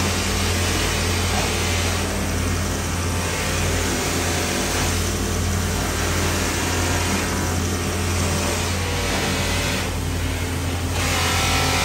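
Belt-driven buffing machine running with a steady motor hum while an aluminium wheel hub is pressed against the spinning polishing wheel. The rushing hiss of the work eases and swells every two to three seconds as the piece is turned and re-pressed.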